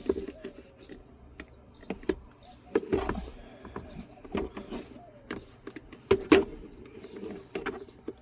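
Scattered clicks, knocks and rattles of hands prying and pulling plastic dashboard parts around a cigarette lighter socket loose, with two louder knocks about three and six seconds in.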